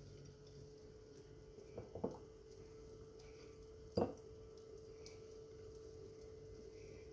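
A steady faint hum, with a couple of light knocks about two seconds in and one sharper knock about four seconds in.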